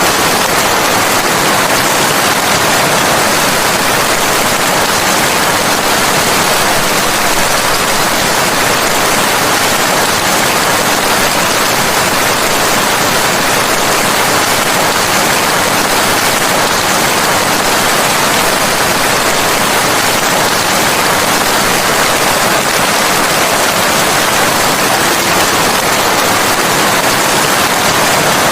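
Steady heavy rain, an even unbroken hiss with no distinct drops or thunder.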